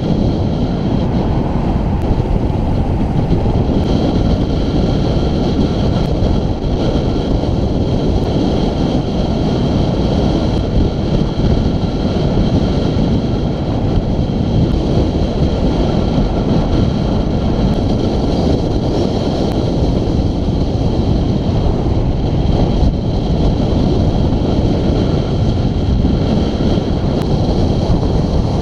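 Steady, loud rush of wind buffeting the microphone of a camera on a road bike descending at speed.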